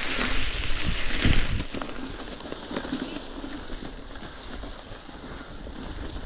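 Mountain bike rolling down a dirt trail: tyre noise with knocks and rattles over bumps, louder for about the first second and a half, then quieter with scattered clicks.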